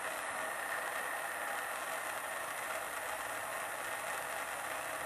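Handheld gas torch burning with a steady hiss as its flame heats a copper pipe elbow fitting for soldering.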